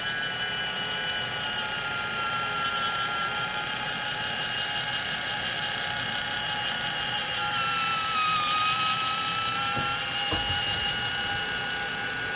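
Battery-powered Kitchen Mama One Touch electric can opener running on a can, its small motor whining steadily. The pitch sags briefly about two-thirds of the way through, then recovers, and there is a short knock soon after.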